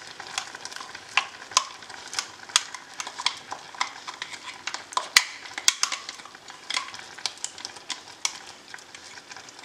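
Thick ground coconut-and-dal paste being scraped out of a steel mixer jar into a steel pot, with irregular sharp metal clicks and scrapes about once or twice a second. Under them, the faint steady hiss of jaggery syrup bubbling in the pot.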